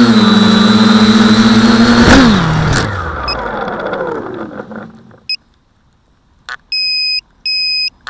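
Quadcopter electric motors and 8x5 carbon propellers running with a steady buzz, then spinning down from about two seconds in, the pitch falling until they stop around five seconds in. Near the end come a few clicks and two short electronic beeps.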